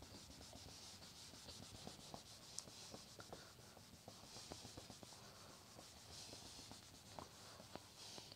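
Faint rubbing of a cloth duster wiping marker off a whiteboard, in repeated uneven strokes.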